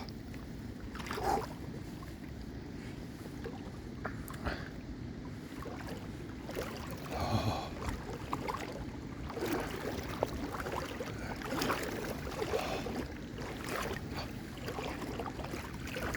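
Legs wading through a deep, rain-swollen creek: irregular sloshing and splashing over the steady rush of the flowing water.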